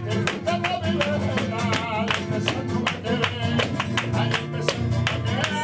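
Sevillanas played live: flamenco guitar strummed in a brisk, steady rhythm, with a singer's wavering voice over it.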